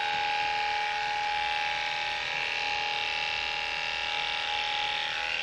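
Electric dog-grooming clippers running with a steady, even hum, their blade cutting a dog's fur around the head.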